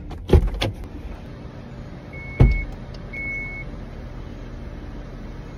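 Car door knocks near the start and then shuts with a heavy thump about two and a half seconds in, while the car's warning chime gives two short high beeps, over a steady low hum in the car cabin.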